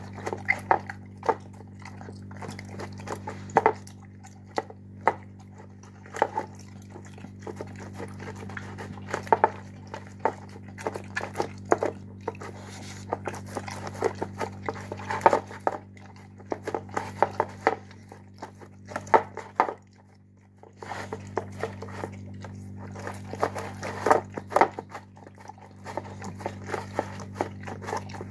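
A dog eating wet chunks in gravy and pasta from a large bowl: irregular wet chewing and smacking, with a brief lull a little past two-thirds through, over a steady low hum.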